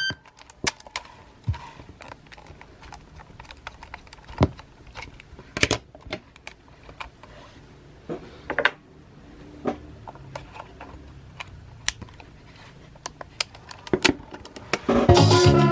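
Scattered sharp clicks and clatter of a Sony WM-EX655 cassette Walkman being handled, over a low steady hum.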